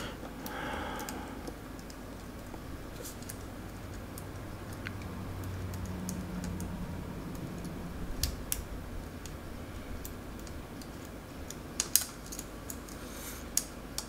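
Scattered small clicks and taps of fingers working inside an open laptop, fitting Wi-Fi antenna leads onto the snap-on connectors of a Wi-Fi card. The clicks are sparse and faint, with a couple of sharper ones near the end.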